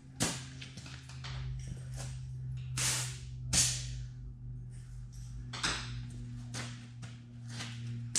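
Scattered knocks, clanks and scrapes of hand work on a heavy truck wheel and tire, the loudest a little past the middle, over a steady low hum.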